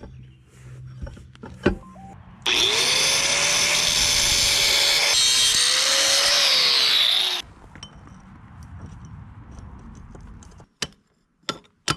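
Angle grinder with a cutting wheel spinning up about two and a half seconds in and cutting through a steel pipe for about five seconds, its whine sagging as it bites, then cutting off abruptly. A few sharp metal clicks follow near the end.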